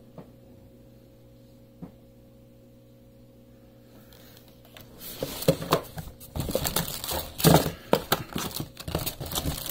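Plastic lure packaging crinkling and crackling as it is handled, starting about halfway through; before that only a couple of faint clicks over a low hum.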